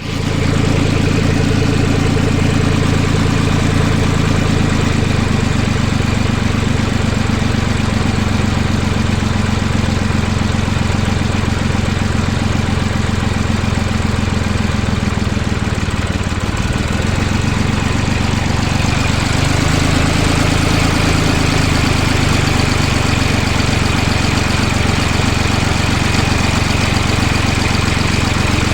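Tractor engine running steadily at idle, with a slight shift in pitch about seventeen seconds in.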